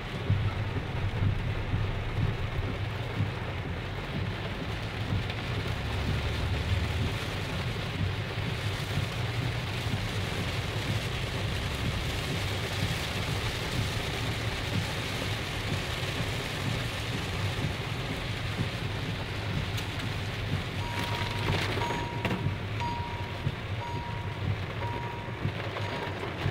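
Heavy rain drumming on a car's roof and windscreen, heard from inside the cabin: a dense, steady rush with a low rumble beneath it. About 21 seconds in, a beeper starts sounding about once a second.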